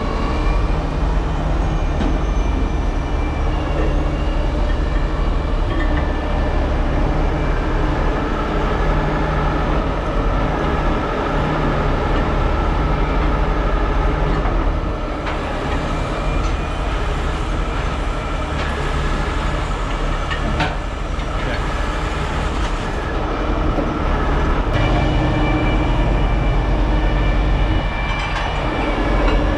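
Heavy diesel engines of rotator tow trucks running steadily, with a low rumble and a steady drone, and a few sharp metallic clinks.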